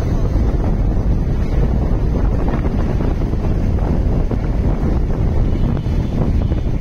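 Steady low rush of wind buffeting the microphone on a moving motorcycle.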